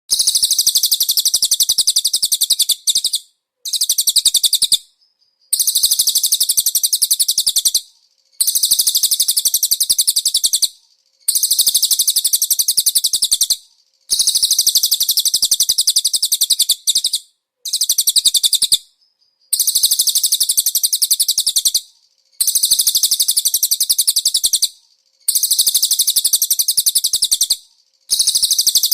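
Cililin song in repeated rapid, high-pitched trilled phrases, each one to three seconds long, with short pauses between. It starts abruptly.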